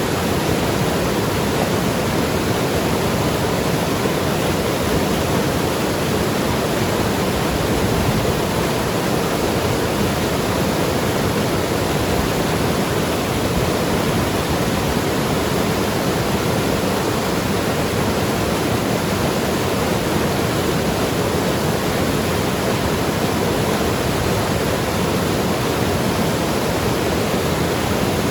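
Mountain river rushing and gurgling over rocks: a steady, unbroken wash of flowing water.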